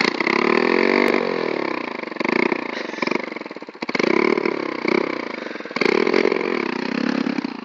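Pit bike's small motorcycle engine catching right at the start, then revved up and down in about four swells while the bike stands still.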